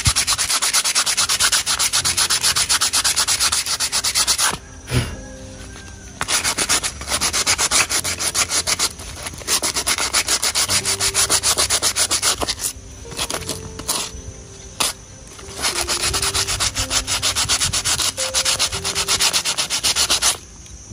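Rapid, steady rubbing strokes on a coconut shell being scrubbed and polished to a gloss, with a few short pauses.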